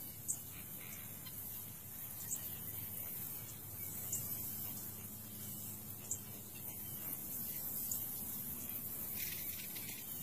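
Faint outdoor ambience: a steady hiss under a low hum, with a short high-pitched chirp about every two seconds.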